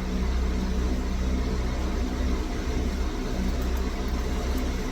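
Steady low mechanical hum of a running motor or idling engine, with a few faint light ticks late on.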